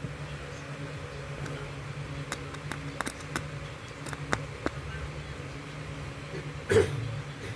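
Light clicks and taps of wires, screws and tools being handled at an electrical box, then one louder knock near the end, over a steady low hum.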